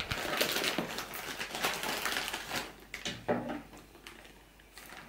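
Plastic courier bag being torn open and pulled apart by hand: dense crinkling and crackling of the plastic, thinning out after about three seconds.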